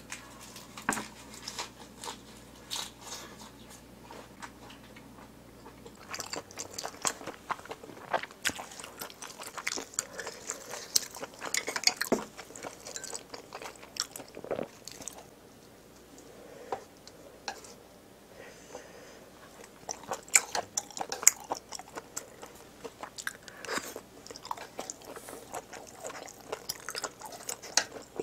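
Close-miked chewing and crunching of a lettuce wrap filled with spicy pig's trotters. There are many wet, crisp crunches, thicker from about six seconds in, with a quieter spell past the middle.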